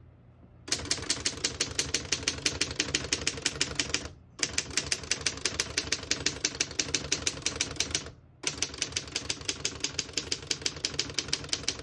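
1936 Underwood No. 12 manual typewriter being typed on fast, about ten keystrokes a second. The typing comes in three long runs, with short pauses about four and eight seconds in.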